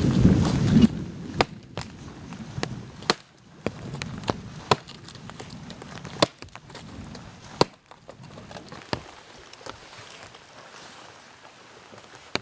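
Hatchet chopping and splitting firewood: sharp knocks roughly every second and a half. A low rumble fades out in the first second.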